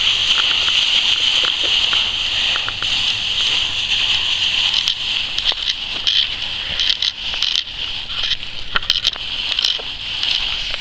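Dry fallen leaves rustling and crunching as a boxer puppy bounds through a leaf pile, with a steady high hiss underneath and quick crackling snaps that come thicker in the second half.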